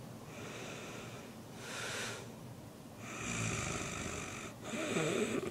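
A person snoring: long noisy breaths in and out, with a low snore about three seconds in and a wavering, pitched sound near the end.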